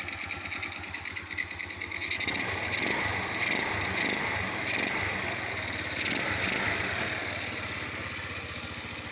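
Small gasoline engine running, rising in speed and loudness about two seconds in, then easing back toward idle; its hard starting is blamed on an intake valve with no clearance.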